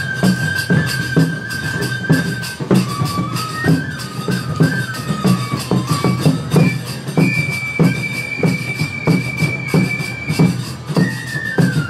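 Enburi festival music: a bamboo flute plays a stepping melody, with one long high held note in the middle, over a steady beat of drum strikes.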